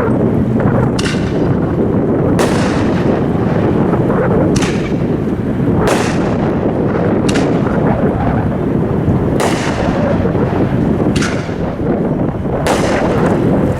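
A Legend 'Giant Willow with colored tips' 500-gram consumer fireworks cake firing: about eight sharp reports, one every second or two, over a steady low rumble.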